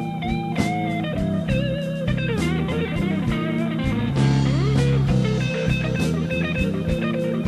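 Intro music led by guitar with bending, sliding notes over a steady beat.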